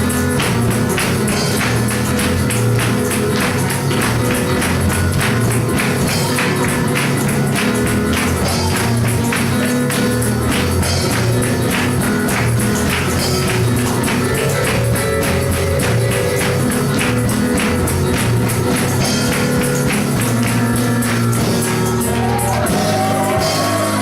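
Live church worship music: a tambourine shaken in a fast, steady rhythm over sustained bass notes and chords that change every few seconds.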